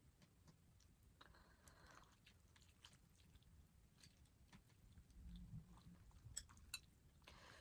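Faint close-up eating sounds: chewing and wet mouth noises from someone eating ramen noodles and chicken sausage, with scattered small sharp clicks.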